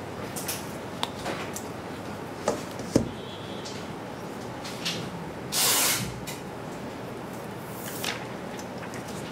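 Cardboard phone box and phone being handled during unboxing: scattered light clicks and taps, a sharp knock about three seconds in, and a half-second scraping rustle just before six seconds, the loudest sound, over a steady hiss.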